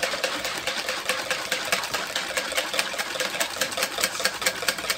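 Hand whisk beating a sugar-and-yogurt cake batter in a plastic bowl: rapid, even clicks of the wires against the bowl, several a second, without a break.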